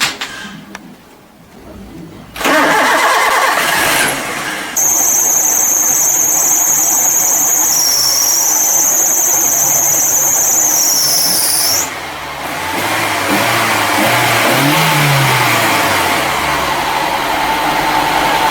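Maruti Gypsy MPFI petrol engine being started after a suspect ignition lead was replaced to chase a misfire: a sudden loud start about two seconds in, with a high-pitched squeal for about seven seconds, then the engine running on steadily.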